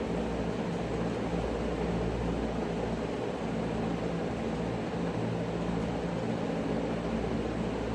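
Steady mechanical drone: a continuous rushing noise over a low hum that swells and fades every second or so.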